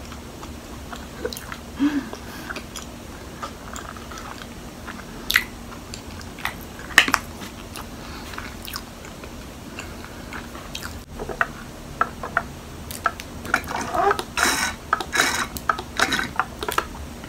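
Close mouth sounds of chewing soft, sticky Hakka mochi coated in peanut powder, with scattered wet smacks and clicks. Near the end comes a denser run of sips and swallows from a cup of milk tea.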